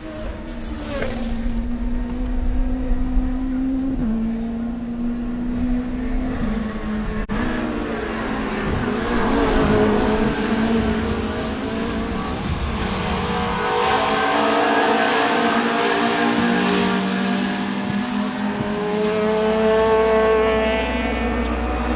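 WTCC touring race cars running on track in qualifying, engine pitch rising and falling through gear changes as cars pass.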